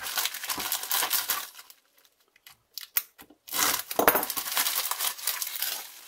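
Plastic mailing envelope being slit and torn open with a scalpel, rustling and crinkling. After a short lull with a few light clicks, more loud crinkling of plastic and bubble wrap as the wrapped item is pulled out.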